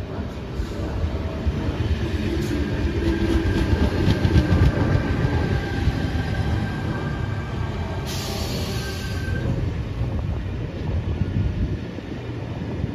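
Sydney Trains Tangara double-deck electric train passing close by, its wheels rumbling heavily and clicking over the rails in the first few seconds. A steady high whine runs through the middle of the pass, with a brief hiss about eight seconds in.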